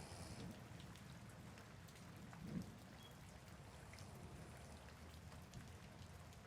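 Soft, faint rain: a steady hiss with scattered ticks of single drops. A brief low thud about two and a half seconds in is the loudest moment.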